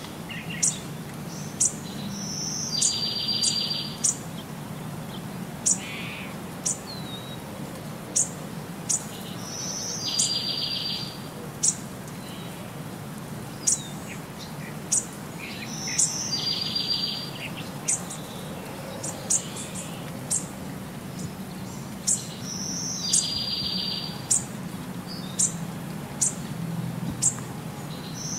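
Birdsong ambience: short, sharp high chirps every second or so, with a one-second trilled call repeating about every six and a half seconds, over a steady low hum.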